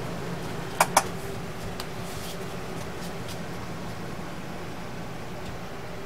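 Steady mechanical hum of a small room, like a fan running, with two sharp clicks close together about a second in.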